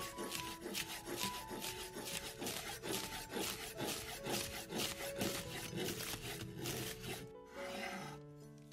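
A chef's knife shredding a head of raw green cabbage on a wooden cutting board: quick, even slicing strokes, several a second, each ending in a light knock of the blade on the wood. Near the end the chopping stops and gives way to a short scrape as the shredded cabbage is pushed across the board. Soft background music plays underneath.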